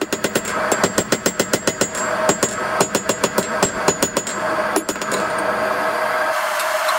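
Cross-pein hand hammer striking red-hot steel on a Peter Wright anvil, rapid ringing blows about six a second in runs with short pauses, forging a bottom fuller. The hammering stops about five seconds in, leaving a steady rushing noise and hum.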